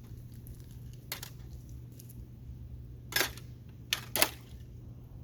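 A few short metallic clicks and clinks from hand tools being handled, four in all with the loudest three close together near the end, over a steady low hum.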